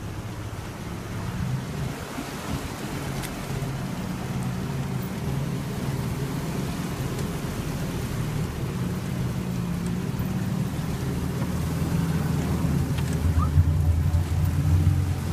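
Land Rover Series engine running at low revs as the truck wades slowly through a flooded trail, with water washing around it. The engine gets louder near the end.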